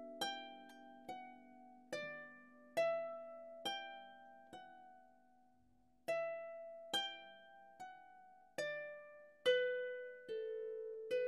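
Solo harp playing a slow melody of single plucked notes, each ringing and fading before the next, with a short pause about halfway through.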